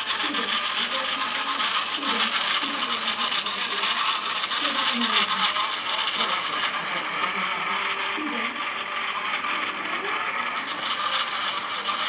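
Engine sound played by the DCC sound decoder of a model locomotive through its small speaker: a steady hiss with a wavering hum. The decoder is somewhat broken, so the sound comes out different from how it should.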